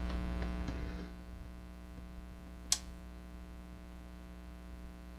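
Home-built Graymark 510 radio giving out a steady mains hum with no station tuned in, with a short rush of noise at the start and one sharp click about two and a half seconds in.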